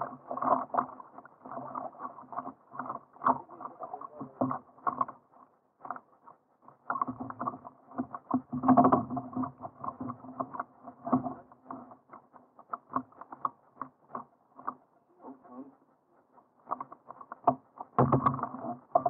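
Kayak on open water: irregular splashing and knocking, heard muffled through a cheap action camera.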